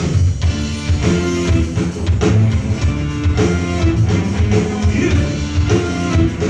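Dangdut music played loud through a pro-audio PA sound system during a sound check, with a heavy bass line, drums, guitar and a singing voice.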